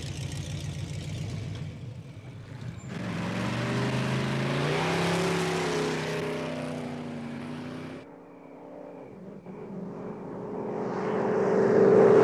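A Chevrolet Camaro's engine rumbling low, then revving up as the car accelerates away over tyre hiss on a wet road. After a sudden cut, the car comes closer and drives past, growing louder to its loudest near the end.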